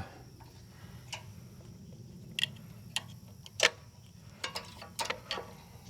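Scattered light clicks and knocks, about eight at uneven intervals with the loudest a little past the middle, as the ignition coil and its wires are handled and worked free on a small Kohler engine. A steady low hum runs underneath.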